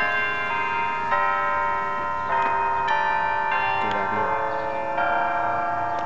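Church bells chiming a sequence of different notes. A new bell is struck roughly every half second to second, and each one rings on under the next.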